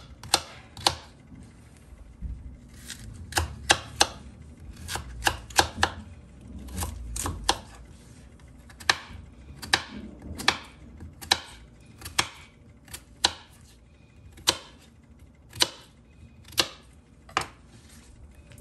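Kitchen knife dicing peeled potatoes on a wooden cutting board: sharp knocks of the blade striking the board, some in quick runs and others about a second apart.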